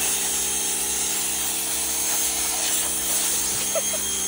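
Ryobi 2000 PSI electric pressure washer running steadily, its motor and pump humming under the hiss of the water jet spraying a fabric cushion cover.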